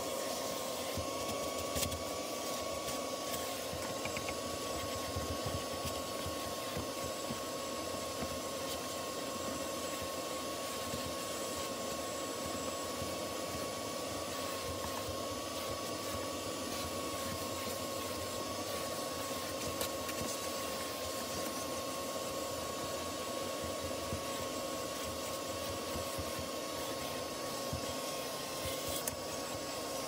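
Carpet extractor running steadily: a vacuum motor's even, high whine over a rushing hiss of suction.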